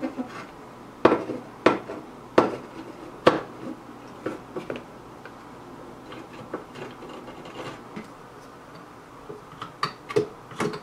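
Scattered sharp metallic clicks and taps as a large 100-watt soldering iron and solder wick work the solder off a can capacitor's lug on a tube amp's metal chassis: four loud ones in the first few seconds, light ticks after, and a few more near the end.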